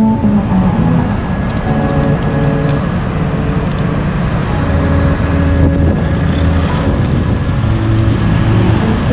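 Outboard motor of a small fishing boat running steadily at trolling speed.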